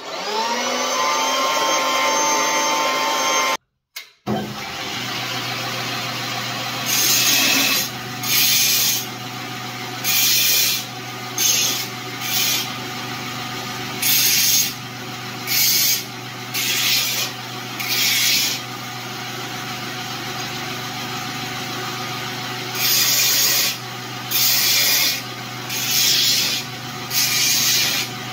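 A small portable metal-cutting band saw in a stand runs with a steady motor whine, then cuts off abruptly. Then a Fein GRIT belt grinder hums steadily while a steel strip is pressed to the belt about fifteen times, each pass a short grinding hiss of under a second.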